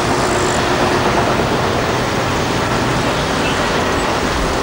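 Large rigid-frame dump truck's diesel engine running under load as the hydraulic hoist raises the body, with the rock load starting to slide out and rumble down near the end. The sound is a loud, steady rumble throughout.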